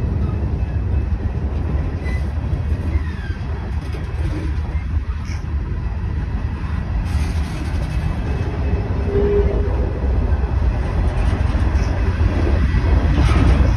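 Freight cars of a mixed manifest train (tank cars, covered hoppers and boxcars) rolling past close by: a steady rumble of steel wheels on the rails.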